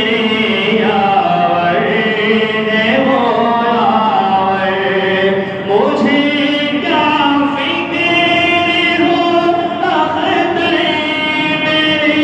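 Naat being sung without instruments: a voice holding long, sliding notes in a slow melody.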